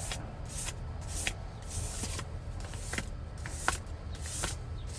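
600-grit sandpaper drawn lightly over a leather seat bolster in one-direction strokes, knocking down raised spots of dried filler: a soft scratchy swish with each stroke, about eight strokes, over a steady low hum.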